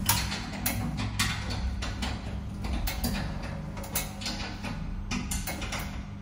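Irregular metallic clicks and knocks from hand tools on metal fittings, a few a second, over a steady low hum.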